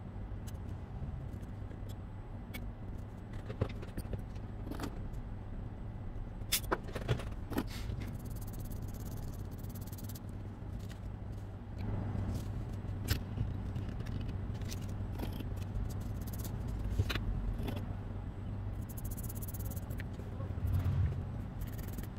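Steady low electrical hum of workbench equipment, with scattered light clicks, scrapes and rattles of small tools and a BGA chip being handled on a metal stencil and a board, and a short scratchy hiss near the end.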